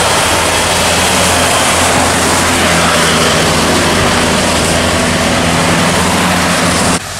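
Tour bus diesel engine running steadily as the bus passes and pulls away, under a loud hiss of tyres on a rain-soaked road and falling rain. The sound cuts off abruptly about seven seconds in.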